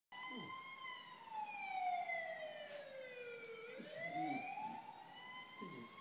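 Ambulance siren wailing: one slow glide down in pitch over about three and a half seconds, then back up again. A few short, quieter low sounds come in under it near the start, about four seconds in, and near the end.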